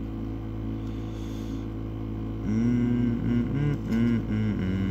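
Steady low background hum. About two and a half seconds in, a person's voice hums or drawls wordlessly for about two seconds.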